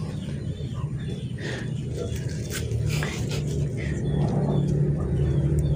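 A cat chewing and tugging at a weed stem, with a few faint short crunches, over a steady low rumble that grows slightly louder toward the end.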